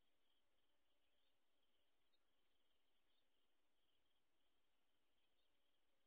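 Near silence, with faint high-pitched insect chirring running throughout. A few brief, slightly louder high chirps come about three and four and a half seconds in.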